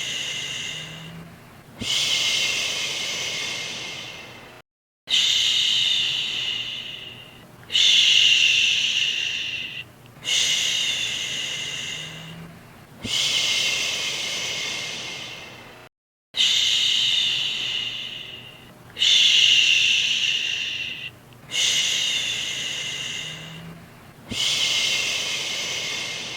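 A woman whispering "shhh", repeated about ten times. Each hushing hiss starts suddenly and fades away over two or three seconds.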